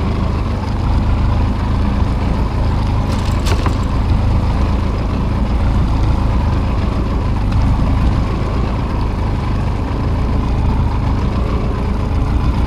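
Steady low rumble with no clear pitch, and a brief sharp clatter about three seconds in.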